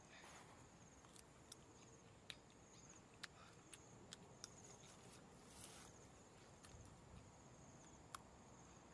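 Faint outdoor ambience: a high insect trill that comes and goes, with a scattering of small sharp clicks.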